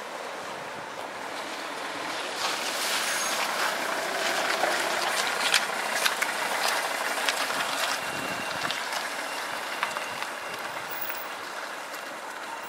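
Strong wind gusting and rushing, swelling for a few seconds in the middle and then easing, with a few light clicks.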